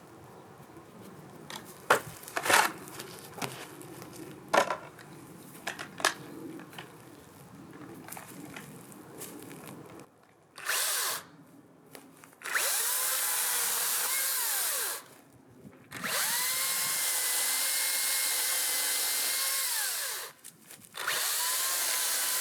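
A cordless Makita brushless electric chainsaw is run in four bursts, each a steady high whine that spins up and winds down, as it is put to a tree stump. Before the first burst there are a few scattered knocks and handling sounds.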